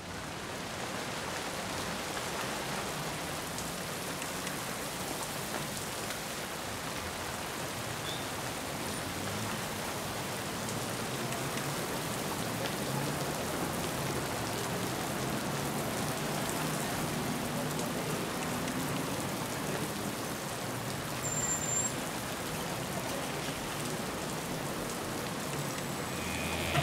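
Steady rain pouring and splashing, a continuous hiss that begins suddenly.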